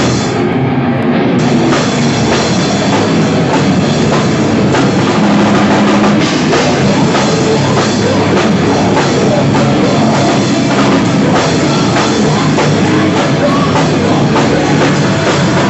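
A live rock band playing loudly: drum kit and electric guitars, played as one dense, continuous wall of sound.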